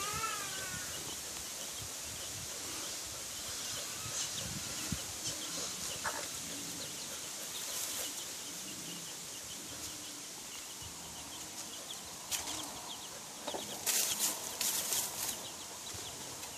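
A mother hen with her chicks: the chicks give short repeated peeps now and then, most in the first second, and the hen makes a few soft low clucks. About 14 to 15 seconds in comes a burst of crackling rustle of dry leaves as the hen scratches and pecks at the ground.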